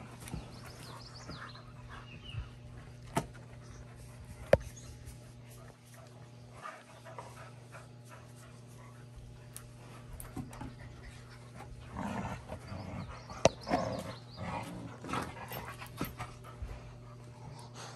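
Labrador puppies play-fighting and tugging at a toy: panting and scuffling, with a few sharp knocks, busier about two-thirds of the way in.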